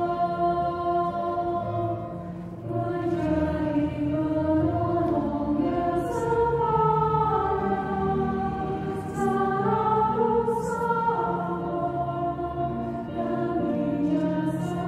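Women's choir singing a hymn in Indonesian, with long held notes.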